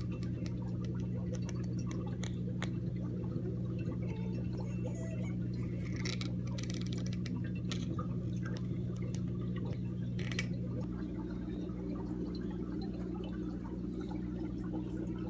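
Aquarium sponge filter bubbling from its air line, a scatter of small pops and trickles over a steady low hum.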